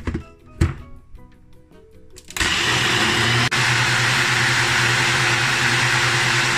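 Two knocks, then a Ninja Professional 900-watt personal blender starts about two and a half seconds in and runs steadily, blending a smoothie with crushed ice, with a momentary dip about a second after it starts.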